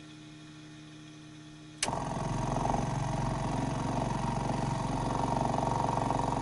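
A switch clicks about two seconds in, and the Piper Cherokee's electric fuel pump starts running with a steady, fast pulsing hum. A faint low hum comes before it.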